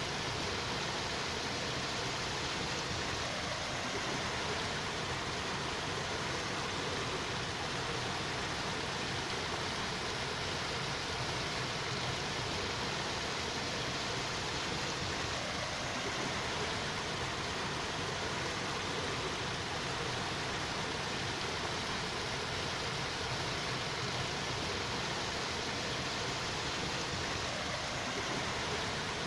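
Steady, unchanging rushing noise with no distinct events, even in loudness throughout.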